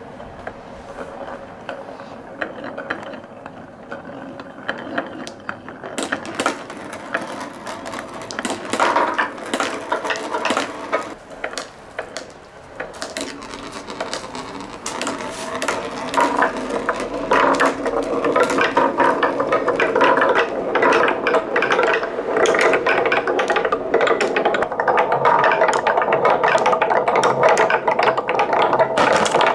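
Many marbles rolling and clacking down a wooden marble run. The clicks are scattered at first, thicken into a dense, continuous clatter about halfway through, and are loudest near the end.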